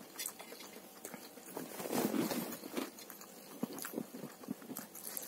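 A person chewing a mouthful of fried rice close to the microphone, with soft, irregular crunching and a few small clicks near the end.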